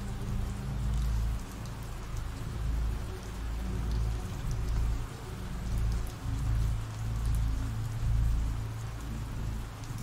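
Rain ambience: steady rainfall, with a low rumble underneath that swells and fades.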